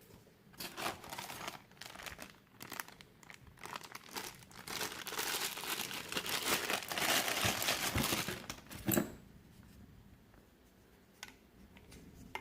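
Plastic packaging being handled, crinkling and rustling in irregular bursts that grow denser and louder midway, ending in a sharp knock about nine seconds in, followed by a few faint clicks.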